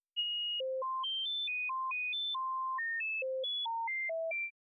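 Spectra additive synthesizer sounding one pure harmonic at a time, its pitch jumping at random between high and low steps about four or five times a second, with a few steps held longer. An LFO's sample-and-hold is randomly selecting the harmonic number of the single-harmonic modulator while the base spectrum is set to silence. It cuts off abruptly near the end.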